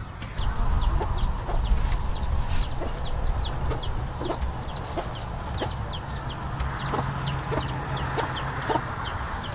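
Chickens calling in the yard: a rapid, even run of high, falling peeps, about three a second, with a few lower clucks, over a steady low rumble.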